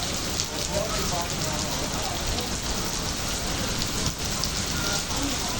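Heavy rain falling steadily, with a dense patter of individual drops hitting a surface.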